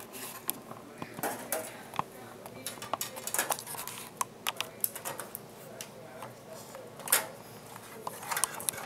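Thin stamped-metal motherboard I/O shield being handled and pressed into the rear opening of a PC case: irregular light metallic clicks and taps, with a sharper one near the end.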